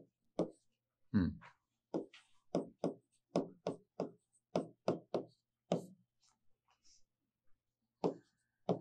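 Chalk knocking and scraping on a blackboard in short quick strokes while a formula is written, about two to three strokes a second, then a pause of about two seconds before a couple more near the end.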